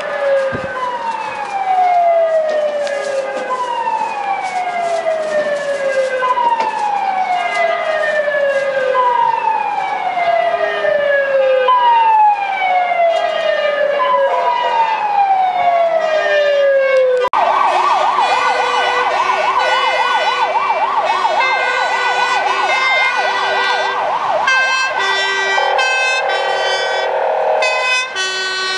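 Fire-service emergency sirens in city traffic. First a siren sweeps downward in pitch over and over, about one sweep every two and a half seconds. After a cut about two-thirds of the way through comes a fast warbling yelp, which changes to a choppier siren tone near the end.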